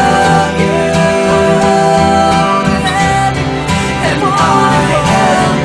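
Background music: a guitar-led pop song playing steadily.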